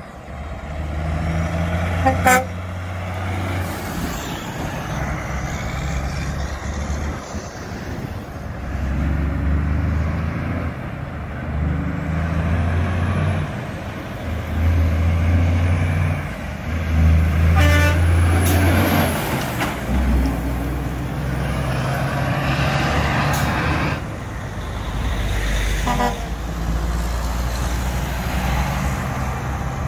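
Heavy diesel trucks pulling away and passing at an intersection, engines climbing and dropping in pitch as they shift through the gears, with other traffic going by. Three short sharp sounds stand out, about two seconds in, past the middle, and near the end.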